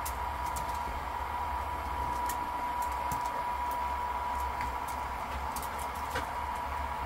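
Steady hum with a constant high whine, typical of a bubble machine's small fan motor, with scattered light clicks from the dog's claws on brick paving as it chases bubbles.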